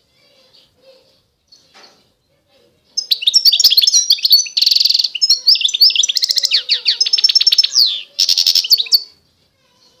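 A finch singing: faint chirps, then about three seconds in a loud, rapid song of twittering trills and buzzy notes that runs for about six seconds, with a brief pause near the end.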